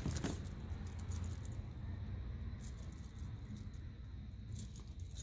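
Costume jewelry clinking and jingling as hands rummage through a pile of metal chains, bracelets and beads on a tray. The clinks come in small flurries: at the start, about two and a half seconds in, and again near the end, as a gold-tone link bracelet is picked out.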